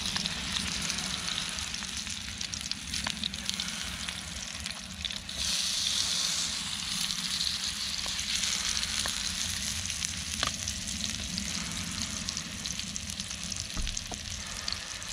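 Burger patties sizzling in a Trangia 27 frying pan over the stove, with scattered pops. The sizzle gets louder about five seconds in.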